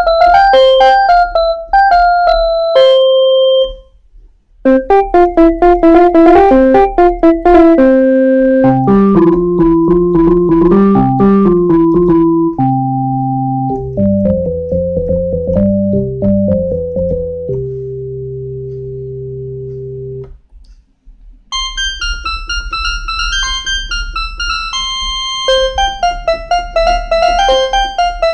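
Kawai FS660 portable electronic keyboard playing single-note melody phrases in its built-in voices, with short breaks between phrases. The notes drop lower through the middle stretch and climb higher again near the end.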